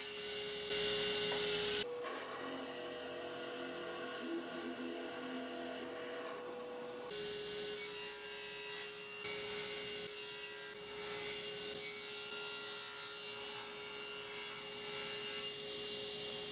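Wood being shaped by hand with a rasp: a rough, continuous rubbing scrape, over a steady hum of held tones.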